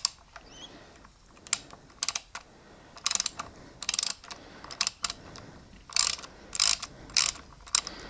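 Socket ratchet clicking in short bursts, about one stroke a second, as a handlebar mounting bolt is undone.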